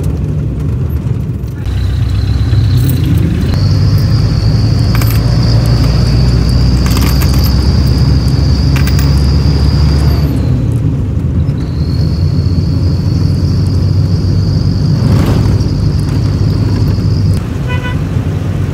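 Steady low rumble of a road vehicle, with a steady high-pitched buzz that starts about two seconds in, breaks off briefly in the middle and stops near the end.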